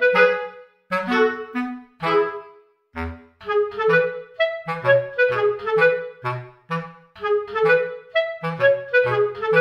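Background instrumental music: a melody of short, separate pitched notes, several a second.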